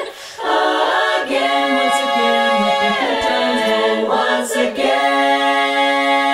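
Women's chorus singing a cappella: a moving passage of shifting, sliding chords, then a final chord held from about five seconds in.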